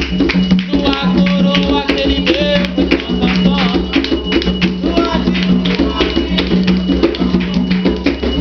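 Atabaque hand drums and a rattle playing a steady, driving rhythm for a ponto to Exu, with a few voices singing short phrases over them.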